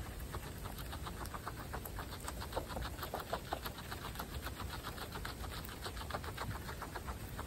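Guinea pigs chewing fresh grass: a rapid, steady run of small crisp crunches as the blades are bitten and ground, several a second, a few louder about a third of the way through.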